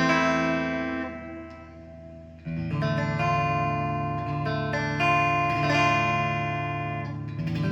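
G&L Legacy Tribute electric guitar with its neck and middle single-coil pickups combined, strummed chords played on a clean amp tone. The first chord rings and fades, then a new strum comes about two and a half seconds in, followed by several chord changes.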